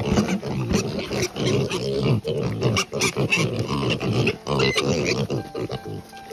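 A group of piglets grunting and calling, short irregular calls one over another. Music comes in near the end.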